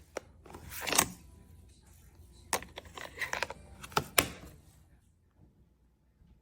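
A series of sharp clicks and knocks from the smart door lock and door hardware being handled, about six over the first four seconds and none in the last two.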